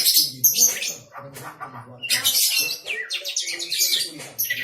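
White-rumped shama (murai batu) singing: quick high trills and whistled phrases in bursts, with a short break about a second in.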